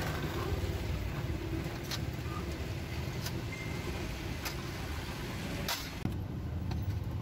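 Steady rumble of passing street traffic, with a few sharp metallic clicks of serving tongs clacking against the meat trays.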